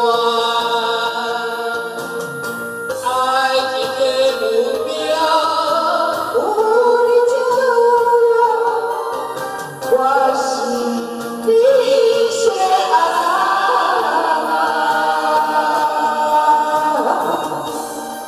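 A man and a woman singing a karaoke duet into microphones over a backing track: the woman sings a line alone, then the two sing the chorus line together.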